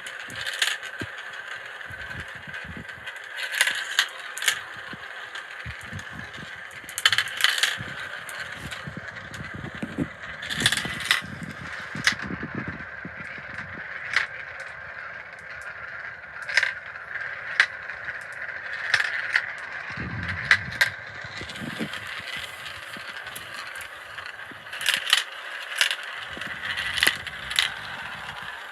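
Marbles rolling through the plastic funnels of a marble run: a steady rolling whir, broken by many sharp clicks and clatters as marbles drop and strike the track, with low rumbles now and then.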